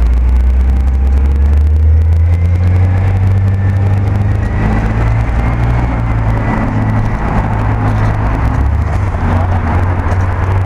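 A motor vehicle's engine running steadily with a loud, low hum, amid street traffic noise.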